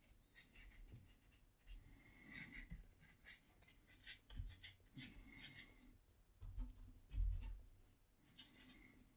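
Faint scratchy strokes of a fairly dry paintbrush dragged over textured watercolour paper to add texture, several short strokes with pauses between. A few soft low bumps come in the second half, the loudest about seven seconds in.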